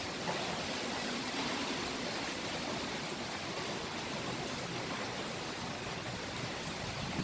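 Typhoon wind blowing hard, a steady rushing hiss with no strong gusts in this stretch.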